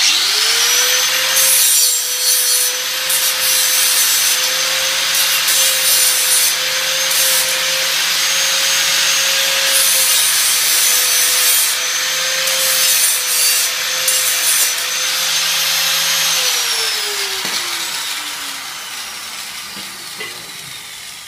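Angle grinder spinning up and grinding the burrs off the cut end of 3 mm steel box-section tube, throwing sparks. About three-quarters of the way through it is switched off and winds down with a falling whine.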